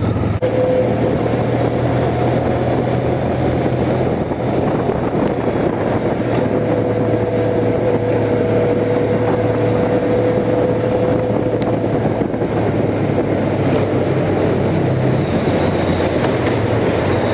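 Honda Crosstourer's V4 engine running steadily at cruising speed, with a low hum under a thin whine, mixed with steady wind rush on the microphone.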